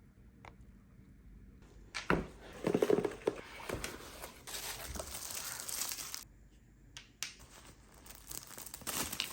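Packaging being torn open and crinkled by hand: about two seconds in, a stretch of loud crackling and tearing, a couple of sharp clicks, then more rustling near the end.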